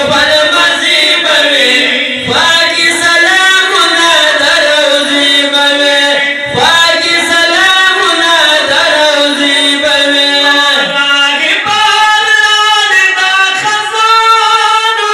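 Men's voices singing a Pashto naat, a devotional poem in praise of the Prophet Muhammad, in a chant-like style with long held, sliding notes.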